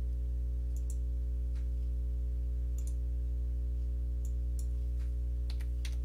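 Computer mouse clicks, about eight to ten scattered sharp ticks, several in quick pairs like double-clicks, over a steady low electrical hum.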